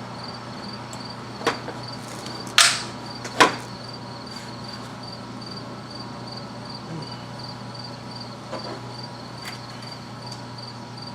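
Hand tools clink sharply against the engine three times, about one and a half, two and a half and three and a half seconds in, while an ignition coil bolt is being worked loose. The second clink is the loudest and trails into a short scrape. Behind them runs a steady high, rhythmic chirping and a low hum.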